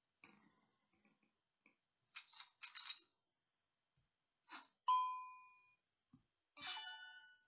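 Online poker game sound effects: short clattering chip sounds about two seconds in and again just before the middle, then a ringing ding that fades over about a second. Near the end comes a longer clatter mixed with chiming tones as the all-in hands are shown down.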